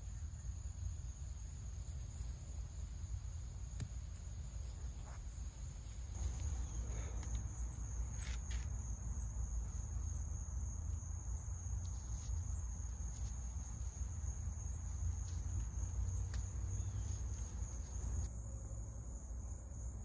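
Insects trilling in a steady high-pitched drone, over a low rumble that grows louder about six seconds in, with a few faint clicks.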